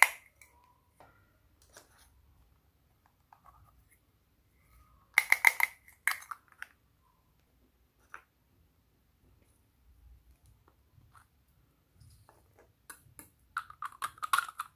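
Small plastic cups and tubes of slime add-ins clicking and rattling as they are handled and shaken out over a glass bowl of slime. A loud burst of rapid clicks comes about five seconds in, and a longer run of clicks near the end, when a plastic candy-stick tube is handled.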